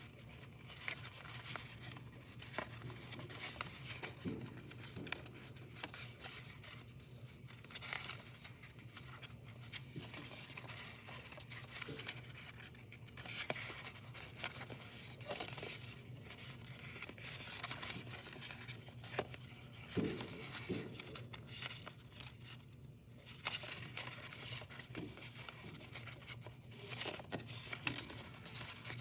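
Pre-creased origami paper rustling and crinkling as it is pinched and collapsed along its folds by hand, with soft scrapes and clicks coming and going. A louder hissing rub sets in about halfway through and again near the end, over a steady low hum.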